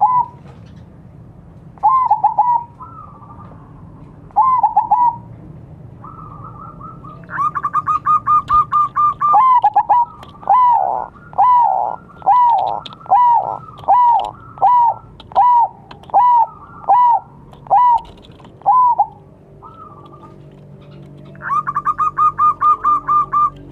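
Zebra dove (perkutut) singing: short bursts of rapid staccato cooing notes, then a long run of about a dozen evenly spaced, downward-bending coos, and another rapid burst near the end.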